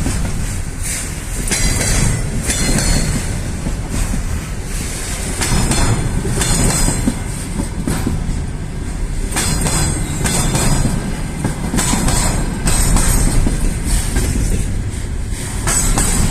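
Freight train wagons rolling over the rails: a steady low rumble, with wheels clacking over the rail joints in repeated clusters every second or so.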